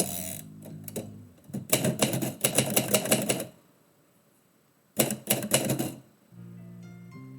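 Typewriter keys striking in two quick bursts of rapid typing: about two seconds of typing starting a second and a half in, then a shorter burst of about a second near the five-second mark. Background music plays before and after the typing.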